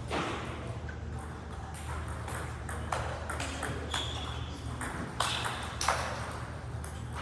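Table tennis balls clicking off paddles and tables in irregular quick succession, from the rally in front and from neighbouring tables, each click echoing briefly in a large gym hall.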